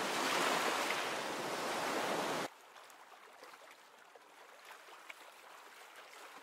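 Ocean surf ambience, a steady wash of waves that cuts off abruptly about two and a half seconds in, leaving near silence.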